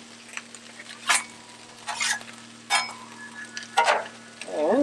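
Rice frying in butter on a Blackstone flat-top griddle, sizzling steadily, with about five short scrapes of a metal spatula on the steel cooktop.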